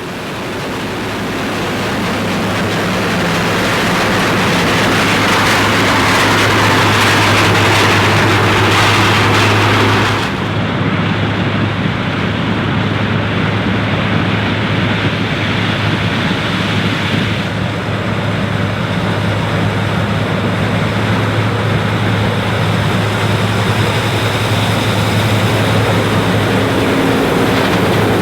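John Deere 9750 STS combine, with its 8.1-litre six-cylinder diesel, running steadily while harvesting corn: a constant engine drone under a wash of machine noise. About a third of the way in the sound changes abruptly and the hiss drops away, and it shifts again a little past the middle.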